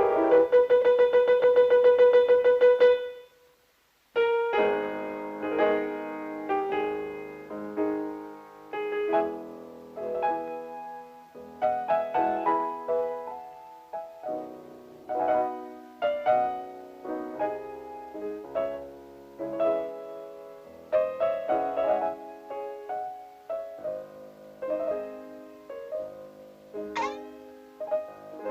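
Piano-led cartoon score music. It opens with a held, buzzing note for about three seconds and breaks off into a second of silence. Then comes a busy run of short piano notes, with a brief high falling sweep near the end.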